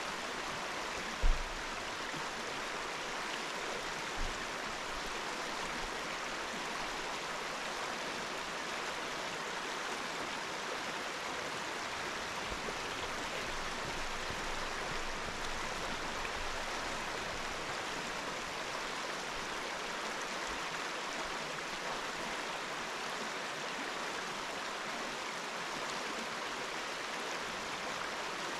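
Waterfall water rushing steadily. A short low thump about a second in, and a smaller one a few seconds later.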